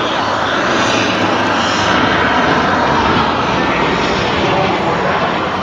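Helicopter in flight, a loud, steady rush of engine and rotor noise that swells slightly midway.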